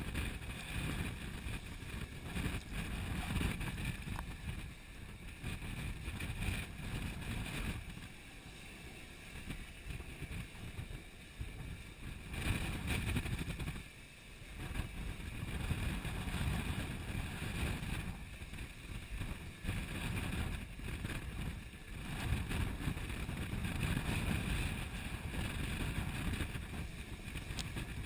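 Gale-force wind buffeting the microphone over the rush of water and breaking spray along the hull of a Sun Odyssey 349 sailing yacht driving through 3–4 m seas. The noise swells and eases as gusts and waves pass.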